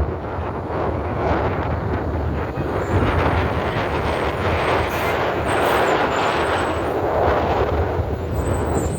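Steady, loud rumble of heavy vehicle noise.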